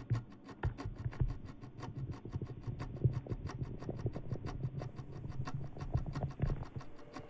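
Sound-effect bubbling and fizzing of beer: a fast, even run of small crackles over a low rumble.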